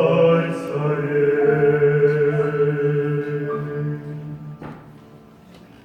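Unaccompanied-sounding vocal harmony singing the closing line of a Christian hymn, ending on a long held note that stops about four and a half seconds in with a short knock. Only a faint tail follows.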